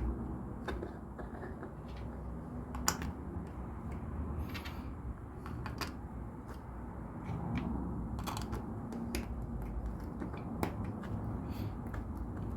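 Plastic LEGO pieces clicking as they are handled and pressed together: scattered sharp clicks, the loudest about three seconds in, over a steady low room hum.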